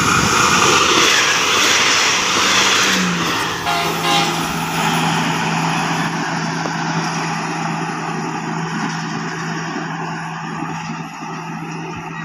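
Daewoo diesel railcar passing at speed: a loud rush of wheels and engine that peaks as it goes by. A steady engine tone drops in pitch about three seconds in as it passes. The sound then fades slowly as the train runs away down the line.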